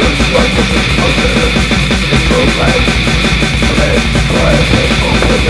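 Raw war metal played loud and dense: heavily distorted guitars over rapid, relentless drumming, with no let-up.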